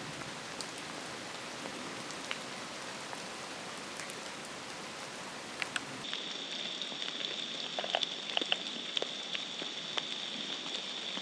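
Steady rain falling, an even hiss with scattered ticks of single drops. About six seconds in, the sound changes and a steady high thin tone joins the hiss.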